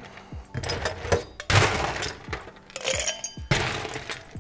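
Ice cubes clattering and clinking against a stemmed cocktail glass and metal shaker tins, in a few short rattling bursts.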